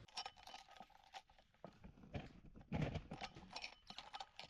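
Faint, irregular light clicks and knocks as the desk's small metal handles and screws are handled and cleaned.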